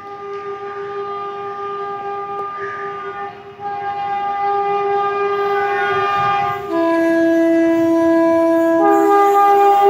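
Indian Railways electric locomotive horn blown in one long continuous blast, stepping between pitches about three times, growing louder as the express approaches.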